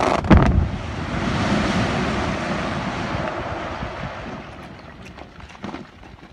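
Quarry rock blast: sharp explosive bangs right at the start, then a long rushing rumble of blasted rock and debris coming down, fading away over about four seconds.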